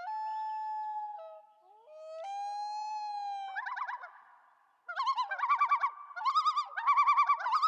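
Common loon calling: two long wailing notes, each stepping up in pitch and held for about a second, then, a few seconds in, a fast quavering tremolo call repeated in several phrases.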